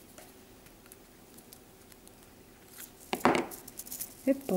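Quiet room tone with a faint hum, then about three seconds in a short clatter of small metal jump rings being handled over a wooden table, followed by a few light clicks.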